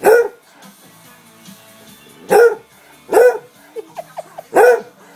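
A dog barking loudly and sharply, four barks with a few short yelps between the last two: attention-demand barking aimed at its owner.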